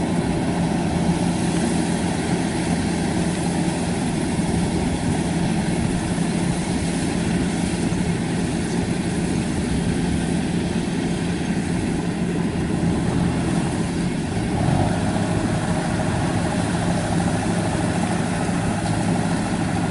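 Kubota 93 combine harvester running steadily as it cuts rice in a flooded paddy. About three-quarters of the way through, the engine note shifts and gets a little louder.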